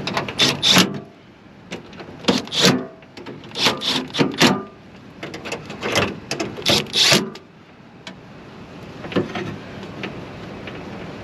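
Metal-on-metal clicks and clanks in short irregular bursts as parts are handled and fitted inside a car door during a window regulator swap. Several clusters come in the first seven seconds, then it goes quiet apart from one more knock.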